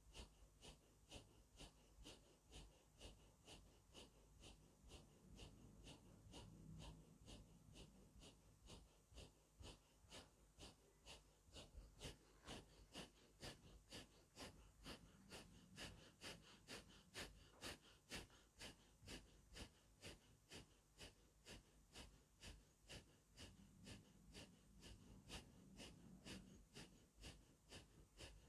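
Faint rhythmic forceful breathing through the nose, about two breaths a second, kept up evenly: the paced breathing of Naqshbandi Owaisi zikr-e-khafi, here focused on the Sirri point at the top of the chest on the left side.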